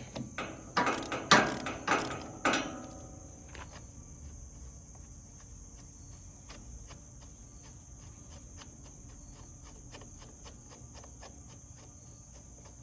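Ratchet wrench with a 12 mm socket working a seat bolt loose: a few loud metal clanks in the first three seconds, then faint, evenly spaced ratchet clicks. A steady high insect chirr runs throughout.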